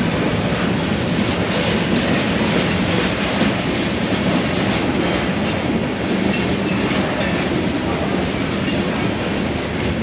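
Freight train rolling past, a steady rumble with the wheels clicking irregularly over rail joints.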